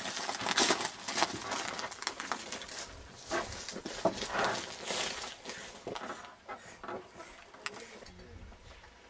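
Irregular knocks and thuds of building materials (sacks and wooden boards) being handled on a truck bed, getting quieter near the end.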